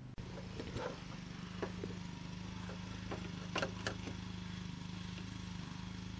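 A handful of short, sharp metal clinks from a wrench working at a riding mower's battery, over a steady low hum.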